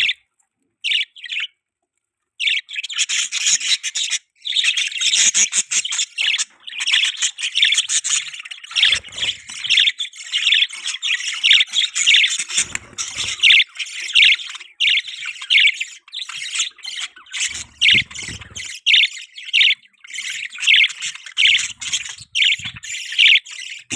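Budgies chirping and chattering: a few short calls, then from about two seconds in a fast, nearly continuous run of high chirps and squawks, likely from several birds.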